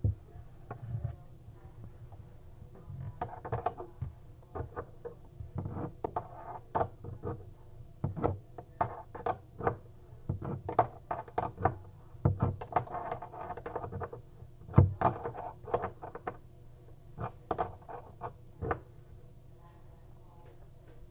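Irregular clicks, taps and clinks of hand tools and metal faucet parts being handled and worked at close range, several a second, with one louder knock near the middle, over a faint steady low hum.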